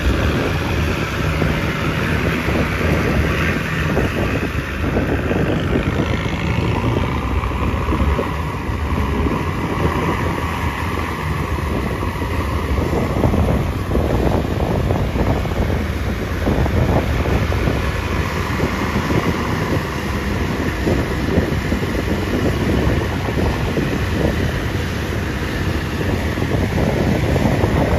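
4x4 vehicle engine running steadily, with heavy wind buffeting the microphone.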